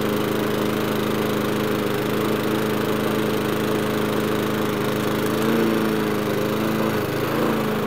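Petrol walk-behind lawnmower engine running steadily, its note wavering briefly about five and a half and again about seven seconds in. It is running smoothly after five weeks without being started.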